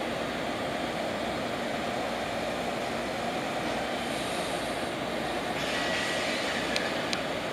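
JR Kyushu 787 series electric train standing at the platform, its onboard equipment giving a steady whooshing drone. About two thirds of the way through a higher hiss and a thin steady tone join in, and two sharp clicks follow near the end.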